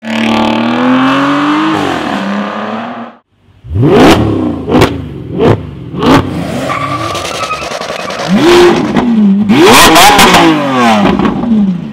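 Aston Martin V12 engine revving hard through a stock exhaust. It pulls steadily for about three seconds and then cuts off. After that come a run of short, sharp throttle blips with cracks, a rev that rises and falls, and a longer rev with crackling that drops away near the end.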